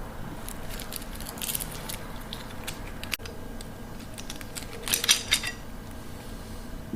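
Light metallic clinks and rattles from a steel flex cable and its looped ends being handled and turned over, with a louder cluster of clinks about five seconds in.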